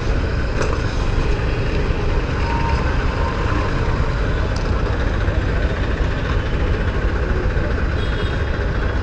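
Motorcycle engine and surrounding street traffic in slow, congested city riding, heard from the rider's own bike: a steady low rumble with no sharp events.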